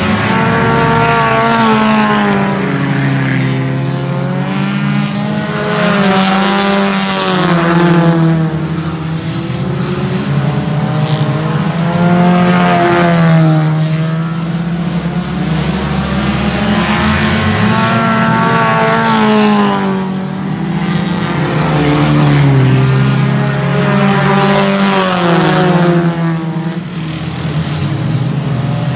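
Several race car engines running hard around a dirt oval, their pitch rising on the straights and dropping into the turns every few seconds, with the engine notes overlapping as the cars lap.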